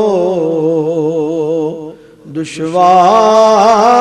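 A man singing a naat (devotional song in praise of the Prophet) into a microphone, drawing out a long wavering note. It breaks off for a breath about two seconds in, then another long note is taken up.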